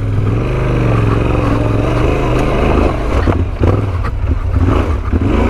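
Yamaha Ténéré 700's parallel-twin engine running at low speed, its revs rising and falling unevenly, with a few sharp knocks about three to four seconds in.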